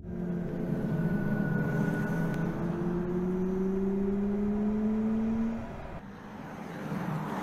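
BMW iX3 electric SUV pulling away, its electric drive whine rising slowly in pitch for about five and a half seconds before dropping off. A second, shorter rise comes near the end.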